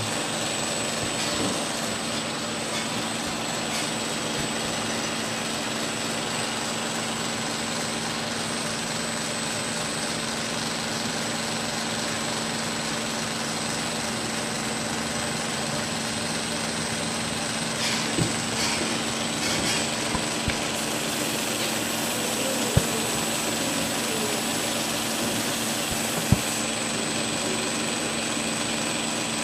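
Belt grinder running steadily with a sanding belt over a contact wheel: a whirring hiss with a thin high whine and a low hum. In the second half a straight razor is held edge-down against the belt for finish grinding, the hiss grows brighter, and there are two sharp clicks.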